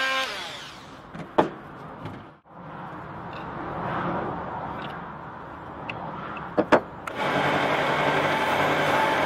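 An oscillating multi-tool winds down and stops. A couple of sharp knocks follow. About seven seconds in, a Record Power BDS150 belt and disc sander starts up and runs loud and steady as a wooden axe handle is sanded on its belt.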